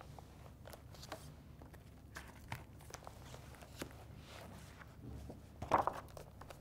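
Faint rustling and small clicks of plastic photo-album sleeves and loose photographs being handled and turned, with a louder rustle near the end.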